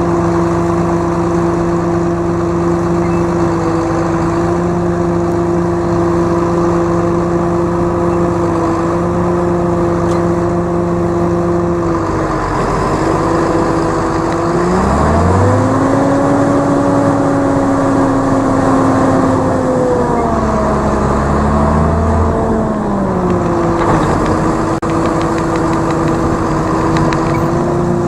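Tractor engine running steadily. About twelve seconds in the revs dip, then climb and hold higher for several seconds before settling back to the earlier steady speed.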